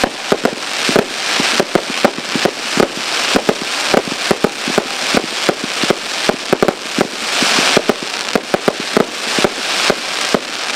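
A 1,000-gram consumer fireworks cake, Pyro Demon's Cataclysm (48 shots), firing in rapid succession: sharp shots and bursts several times a second over a continuous hiss.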